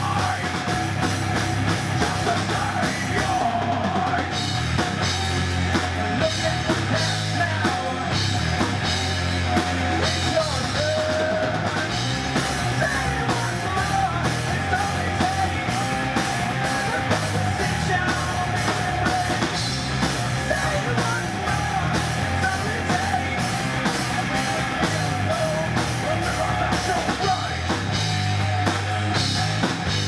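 A rock band playing: drum kit, electric guitars and bass guitar, with a singer yelling and singing over them.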